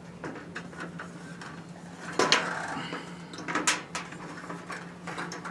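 Sheet-metal cabinet side panels being handled and set in place: a few light clanks and knocks, the loudest about two seconds in and another under a second later, over a steady low hum.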